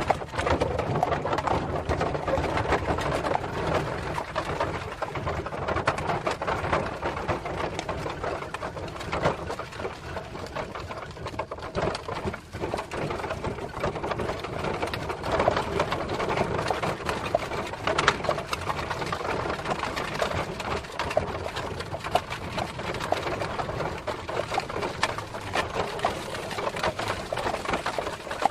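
Horse-drawn cart on the move: a steady, dense rattling clatter of wheels and hooves that keeps on without a break.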